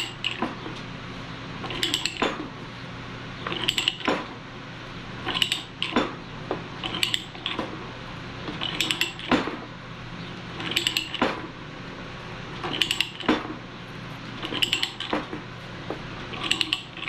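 Ratchet pipe threader being worked stroke by stroke on a 1/2-inch steel pipe: the ratchet head clicks in a quick metallic cluster at each stroke of the handle, about every two seconds, as the die cuts the threads. The die is turning hard at this stage of the cut.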